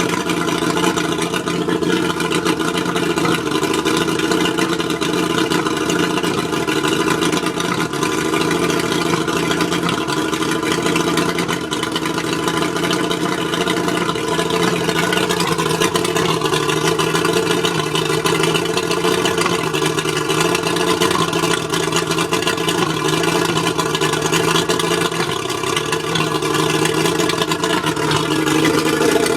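Mercury 135 outboard motor running unevenly with a misfire, which the owner thinks may come from the spark plugs. Its speed shifts slightly about halfway through and again near the end.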